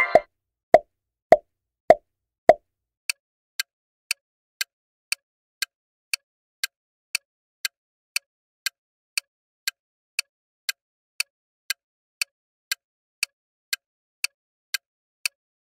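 Quiz sound effects: a short burst right at the start, then four louder pops about 0.6 s apart, then a steady clock-tick countdown effect at about two ticks a second while the answer timer runs.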